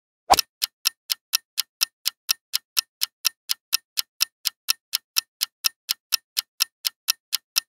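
Quiz countdown-timer sound effect: a clock ticking evenly about four times a second while the answer timer runs down.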